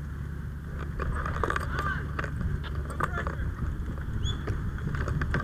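A steady low mechanical hum, with a run of clicks and knocks from gear being handled close to the microphone and faint scraps of distant voices.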